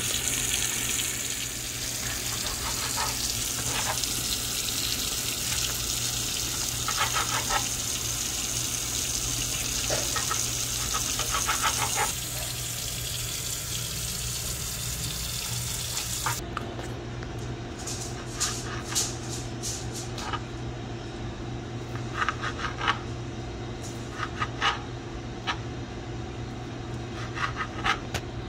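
Water running from a kitchen tap, with a few light clinks of dishes, for about the first half. It then cuts off suddenly, leaving a steady low hum with scattered short knocks and clicks of kitchen work.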